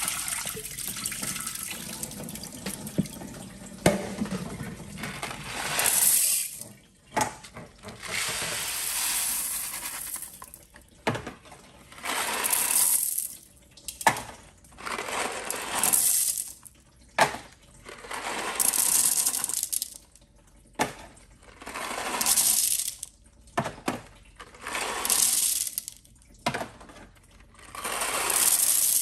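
Small hard objects clattering and splashing into the water of a toilet bowl in repeated handfuls, a swell of rattle and splash every two to three seconds with sharp clicks between.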